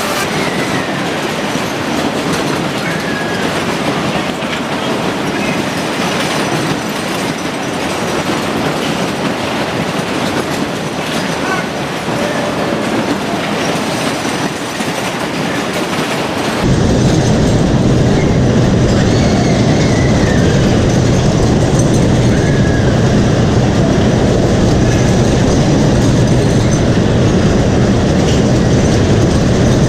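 A ride vehicle running on rails, its wheels clattering steadily. A little over halfway in, the sound suddenly turns louder and deeper.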